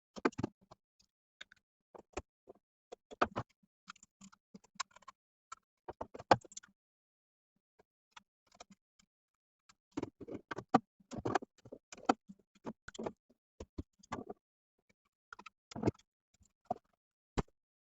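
Irregular light clicks, taps and knocks, some single and some in quick clusters with short pauses between, of hand work on a fire alarm panel and its wiring.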